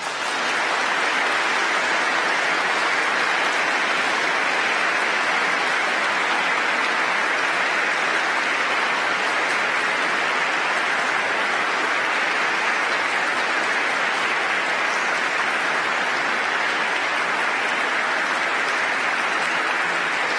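Sustained, steady applause from a large audience, many people clapping at once.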